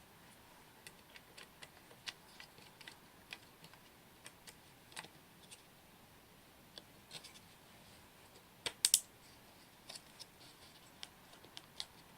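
Scattered light clicks and taps of small computer parts and the mini PC's case being handled, with a quick cluster of sharper clicks about nine seconds in.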